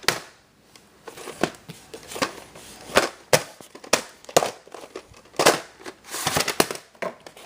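Plastic crinkling and clicking as a VHS tape and its packaging are handled and opened: a string of irregular sharp crackles and clicks.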